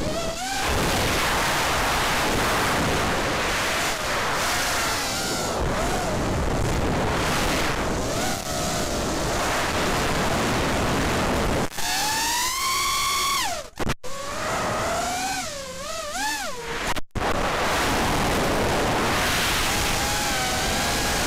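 FPV quadcopter's four Cobra 2204 2300kv brushless motors on three-blade props, heard from the onboard camera under heavy wind and prop-wash noise, their whine rising and falling in pitch with the throttle. Past the middle the wind noise drops and the motor whine swoops up and down clearly, cutting out sharply twice for a moment.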